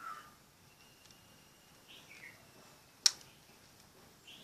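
Birds chirping in the background, short falling chirps every couple of seconds. About three seconds in comes one sharp click from the spring-loaded plastic clip of a universal battery charger being worked by hand.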